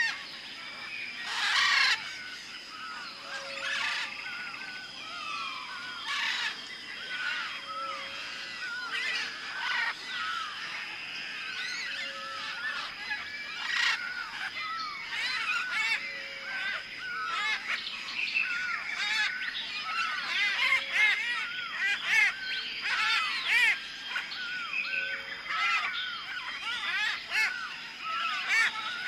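Tropical rainforest ambience: a dense chorus of many birds chirping and whistling over one another, over a steady high whine. A short low note repeats every couple of seconds.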